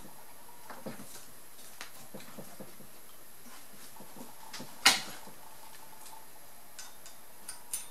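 Camshaft in a Saturn S-Series twin-cam cylinder head being turned with an open-end wrench on its flat: faint clicks of metal parts, then one sharp knock about five seconds in, and a few small clicks near the end.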